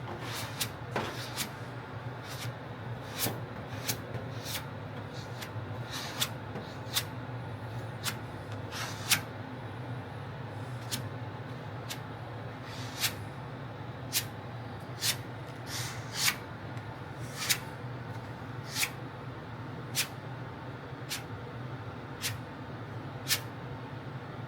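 Light taps on a steel fender panel, sharp and irregular at roughly one a second, some louder than others, over a steady low hum: high spots being tapped down before block sanding.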